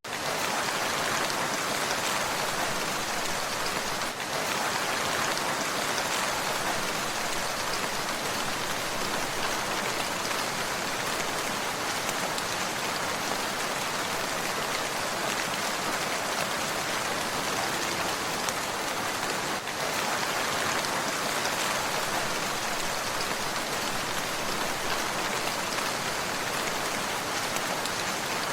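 Steady rain falling, an even hiss of many drops on a surface.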